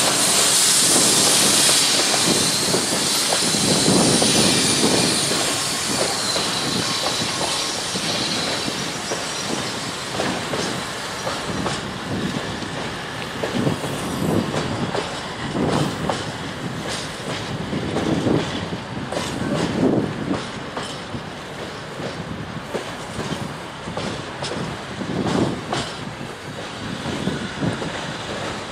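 Electric-hauled container freight train rolling past. A loud high hiss comes as the end of the locomotive goes by in the first couple of seconds. Then the container flat wagons' wheels clatter over the rail joints in a burst every few seconds over a steady rolling rumble.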